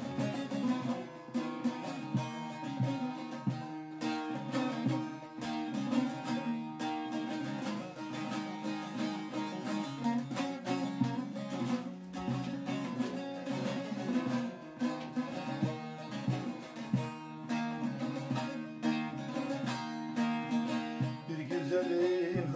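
Bağlama (Turkish long-necked saz) played with quick plectrum strokes, an instrumental introduction to a folk song (türkü).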